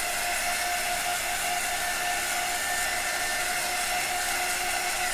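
Handheld electric craft heat gun running steadily, a constant motor whine over the rush of blown air, as it is passed over wet acrylic pour paint to bring up cells.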